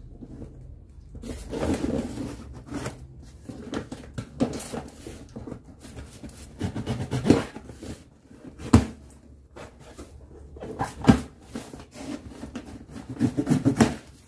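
Taped cardboard shipping box being cut and opened by hand: irregular scraping and rustling of cardboard and packing tape, with a few sharp knocks, and the flaps being pulled open near the end.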